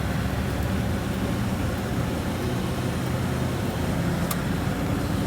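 Steady engine and road noise heard from inside a moving vehicle's cab at highway speed, with a single short click about four seconds in.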